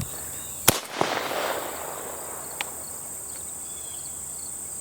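Two shotgun shots less than half a second apart, about a second in, the second trailing off in a short echo. A steady high insect buzz runs underneath.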